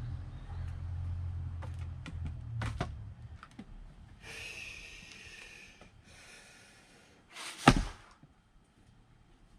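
Axe splitting firewood: one sharp strike into the wood about three quarters of the way through, the loudest sound. Before it come a few lighter wooden knocks and two short hissing sounds.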